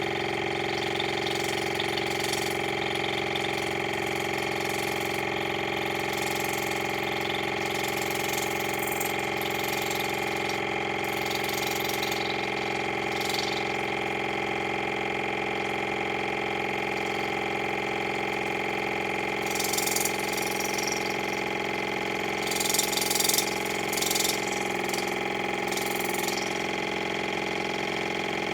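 Electric water flosser's pump running with a steady hum as it jets water into an ear canal to flush out earwax. Short splashes of water come now and then, loudest a few times near the end.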